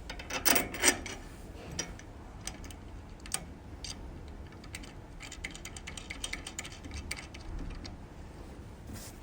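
A screw being fitted and tightened with a hand tool: a few loud metal knocks at the start, then scattered clicks and a run of quick light ticking near the middle and later on.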